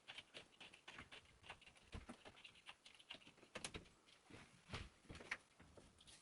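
Faint, irregular light clicks and knocks of a bicycle being turned round and clamped by its top tube in a workstand.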